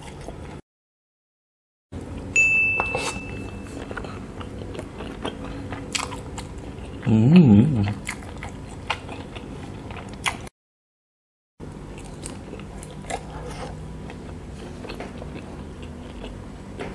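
Close-miked biting and chewing of skewered sausages, with scattered small clicks. About seven seconds in comes a short wavering hum, the loudest sound. The sound drops out completely twice, each time for about a second.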